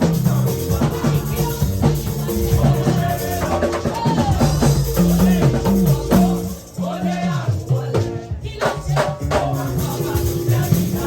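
Live church praise music: a band with bass, drum kit and shakers playing a steady groove, with a voice singing or exhorting over it through the middle.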